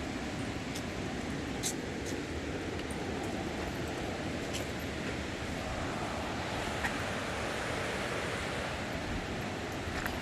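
River rapids rushing steadily, with a few small clicks over the water noise.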